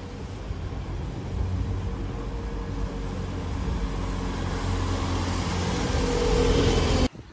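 Bus engine running close by, a steady low drone that grows louder as the bus passes, then cuts off suddenly near the end.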